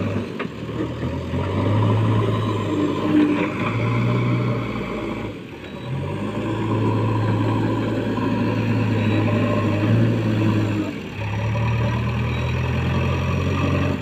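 JCB backhoe loader's diesel engine running and revving as the machine works its loader bucket, a strong low hum that rises and falls, with a few brief sudden breaks.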